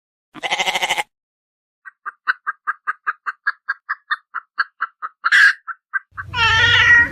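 A short, wavering bleat, then a rapid run of short repeated calls at about five a second, and a longer call near the end.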